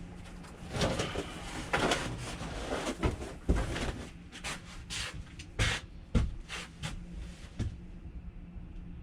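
Irregular knocks, clatters and scrapes with rustling, from furnishings and panels being pulled out and handled during demolition of an RV interior, in a small, boxy space.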